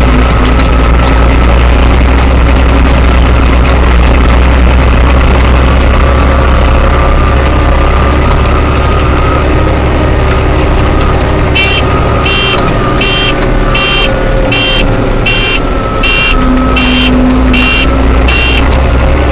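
Fiatagri 100-90 tractor's diesel engine running under way, heard from the cab. About twelve seconds in the engine's low rumble eases and a cab beeper starts sounding about twelve times, roughly one and a half beeps a second, then the engine comes back up near the end.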